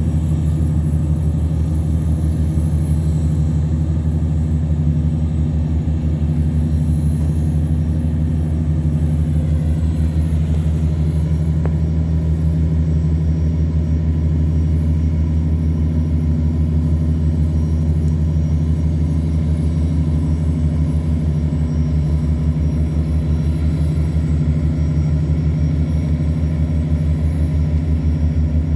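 Tugboat's diesel engine running steadily under heavy load while towing loaded cargo barges upstream against a strong current. It is a loud, deep drone with a fast even pulse and holds the same pitch throughout.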